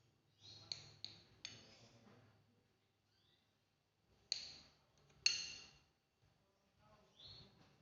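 A knife slicing a ripe papaya on a ceramic saucer, its blade tapping the plate with sharp clicks: three quick ones about a second in, then two more about a second apart near the middle.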